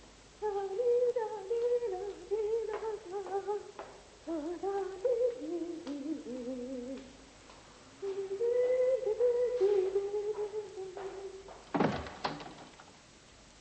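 A woman humming a wavering tune in two long phrases, followed near the end by two sharp knocks close together.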